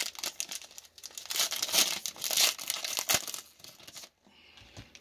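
Plastic wrapper of a 2020 Topps Archives baseball card pack being torn open and crinkled by hand. The crinkling dies down about four seconds in.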